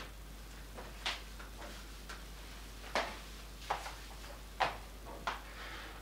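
About five separate sharp knocks and clicks as a hand sets down the espresso tamper and portafilter on the countertop and moves the cups.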